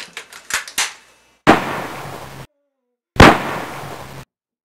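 Two gunshot sound effects, each a sudden loud bang with a tail of about a second that cuts off abruptly, the second coming under two seconds after the first. A few light clicks come before them.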